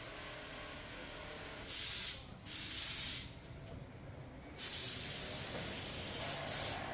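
Three bursts of loud hissing, like compressed air or steam being released, the last and longest near the end, over a steady low factory hum.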